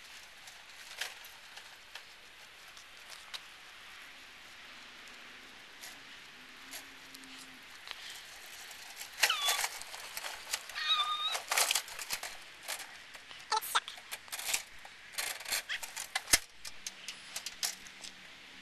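Homemade motorized wagon scooter rolling up close: for the first half only faint outdoor background, then from about halfway a run of rattling and clicking with a couple of short squeals.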